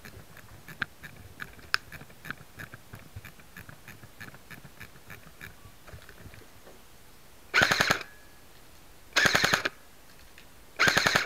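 G&G Combat Machine Raider airsoft M4, an electric airsoft rifle, firing on full auto: three short bursts of about half a second each, a second or so apart, starting about seven and a half seconds in, each a fast rattle of shots.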